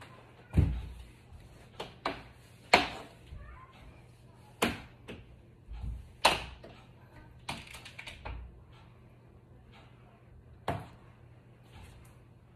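Irregular knocks and clacks from a window frame and cleaning tools being handled: about ten sharp hits. The loudest are a low thud about half a second in and sharp clacks around three and six seconds in.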